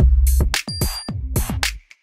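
Electronic background music with a drum-machine beat, dropping out briefly near the end.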